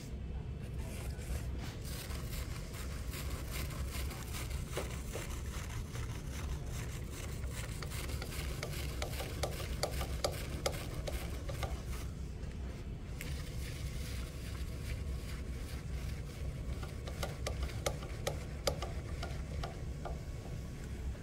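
Wet clay rubbing and squishing under the hands as it is coned up and pressed down to center it on a spinning potter's wheel, with scattered small wet crackles. The wheel runs underneath with a steady low hum.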